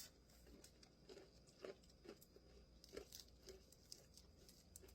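Faint, irregular crunching of someone chewing a heavily breaded fried chicken wing, with soft clicks spaced unevenly.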